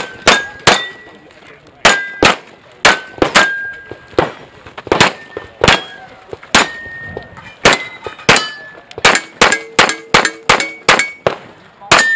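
Rapid pistol fire at steel targets: about two dozen shots in quick strings, some under half a second apart. Many hits leave the struck steel plate with a short metallic ring.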